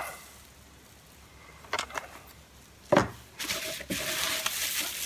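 Package contents being handled: a few light clicks, a sharp knock about three seconds in, then crinkling plastic wrap.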